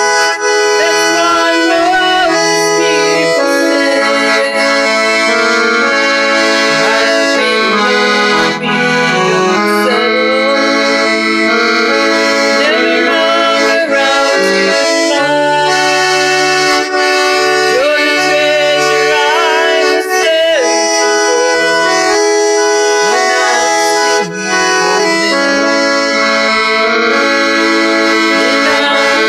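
Piano accordion playing a gospel song, sustained reedy chords over changing bass notes, with a woman singing along at times.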